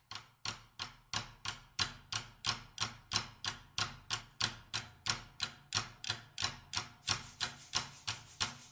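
Dry percussive clicks in an even beat, about three a second, opening the song over a faint low sustained tone, before any other instruments come in.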